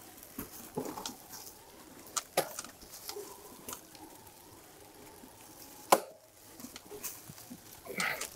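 E-mountain bike climbing a leaf-covered dirt trail under Bosch Gen 4 Performance motor assist: tyres crackling over leaves, scattered clicks and rattles, and one sharp knock about six seconds in, over a faint steady motor whine.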